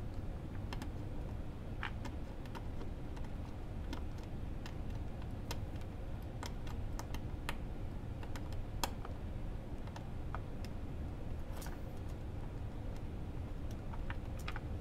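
Utility knife blade shaving and scraping molding flash off the teeth of a small molded gear, making irregular small clicks and scratches.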